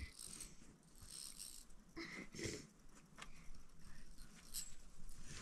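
Cloth rustling and light handling clicks as bedsheet fabric is moved and arranged, in short scattered bursts rather than a steady sound.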